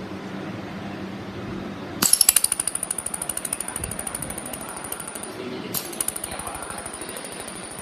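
Pulsed mould laser welding machine firing trains of sharp ticks, about ten a second, over a steady high whine. There are two runs: one starting about two seconds in and lasting about three seconds, and another starting near the six-second mark. A steady low machine hum runs underneath.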